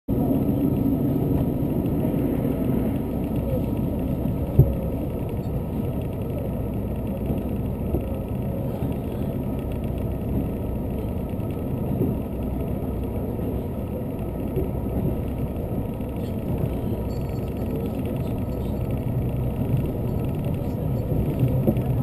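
Inside a diesel limited express train running at speed: a steady rumble of wheels on the rails and running gear. A single sharp knock comes about four and a half seconds in.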